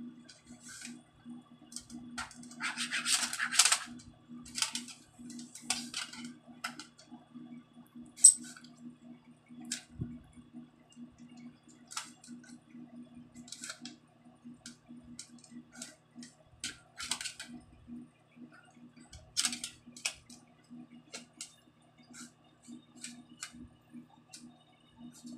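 Plastic pen tapping and scratching on a toy magnetic drawing board in short clicks and scrapes, with a longer stretch of scraping about three seconds in and one sharp click about eight seconds in. A steady low hum runs underneath.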